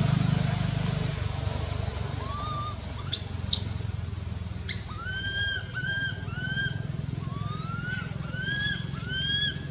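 Baby macaque crying: a run of about eight short, high cries that rise then level off, starting about five seconds in, after a single brief high squeal about three seconds in. A low steady hum runs underneath.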